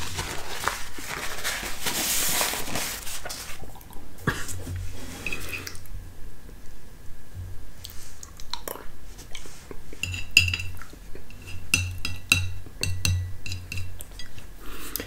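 Metal spoon scraping and clinking on a ceramic plate as the last of a creamy dairy snack is scooped up, with a quick run of ringing clinks about ten seconds in. A rustling noise at the start.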